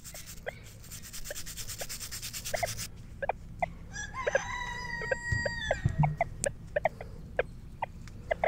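A rooster crowing once, about four seconds in: one long call held level and then dropping at the end. Chickens make short clucking calls throughout.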